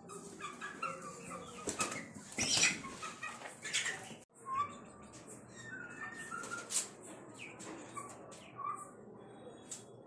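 Aseel chicks cheeping in short peeps amid bursts of wing flapping and scuffling from the birds. The sound cuts out abruptly for a moment a little after four seconds in.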